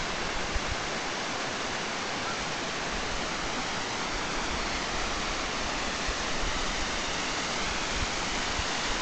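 Steady rush of a hot-spring waterfall, water falling down a rock face and splashing into a pool.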